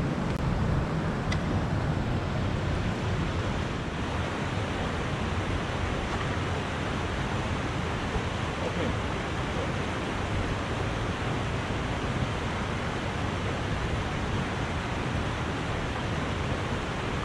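Shallow river water rushing over stones and small rapids, a steady, even rush.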